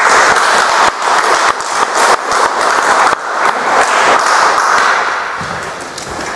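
Audience applauding, many people clapping at once, the applause fading away near the end.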